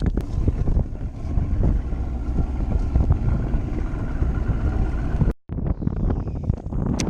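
Wind buffeting the microphone: a loud, gusting low rumble, cut by a brief dropout about five seconds in.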